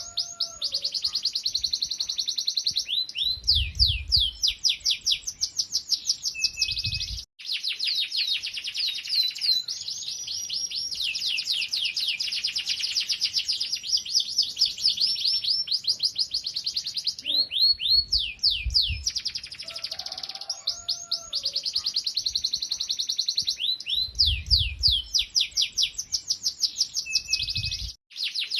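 Domestic canary singing continuously in fast trills and rolls of rapidly repeated sweeping notes. It breaks off briefly twice. A low rumble sounds at times underneath.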